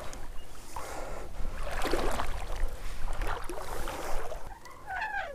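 Tenkara rod and taut line singing under the load of a hooked common carp: surges of hiss, with a short warbling tone near the end.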